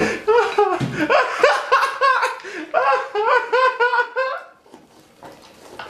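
People laughing hard in rapid ha-ha bursts, dying away about four and a half seconds in.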